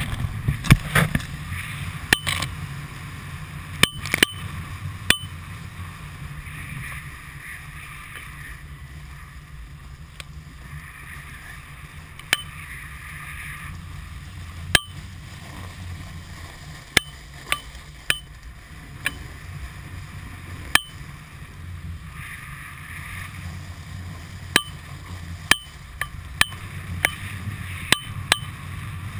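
Wind rushing over an action camera's microphone during a freeride descent on snow, a steady low rumble with the hiss of snow sliding underfoot. Sharp clicks and knocks cut through at irregular intervals, several in quick succession near the end.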